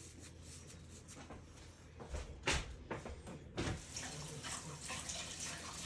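A few light knocks, then water running steadily from a tap, starting a little past halfway.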